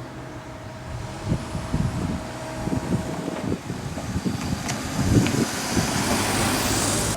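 Road vehicle noise at a street crossing, swelling toward the end as a vehicle draws near, with uneven low rumbling.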